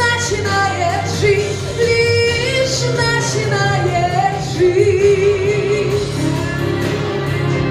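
A woman singing long held notes with vibrato over full instrumental accompaniment with a steady bass.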